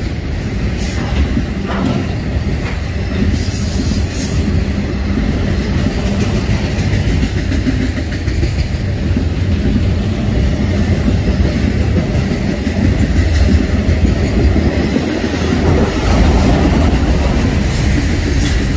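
Freight train of autorack cars rolling past close by: a steady rumble of steel wheels on rail with a clickety-clack over the rail joints.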